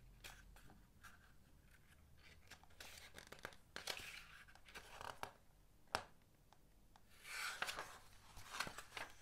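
Faint rustling and a few soft clicks of a hardcover picture book's paper pages being handled, with a louder swish of a page turning near the end.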